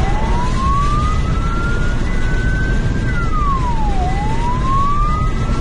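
Police car siren on a slow wail, rising for about three seconds, dropping quickly, then climbing again. It is heard from inside the pursuing patrol car at speed, over steady engine and road noise.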